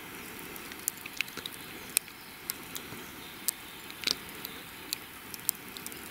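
Irregular small sharp clicks and crackles, about a dozen, over a steady outdoor background hiss.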